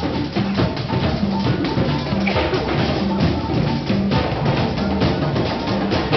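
Drum circle of several hand drums, congas among them, playing together in a busy, steady rhythm of hand strikes with repeating deep open tones.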